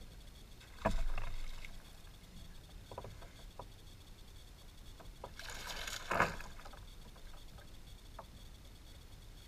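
Handling noise in a kayak while an angler fights a fish: a sudden knock on the kayak about a second in, a few light clicks from the rod and reel, and a short rush of noise that peaks sharply about six seconds in.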